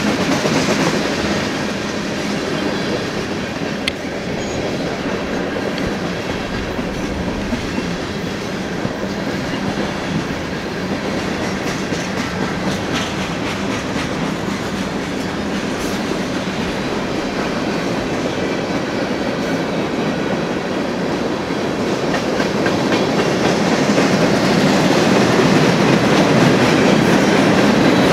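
The cars of a long mixed freight train rolling past: a steady rumble and clatter of steel wheels on the rails, growing louder near the end.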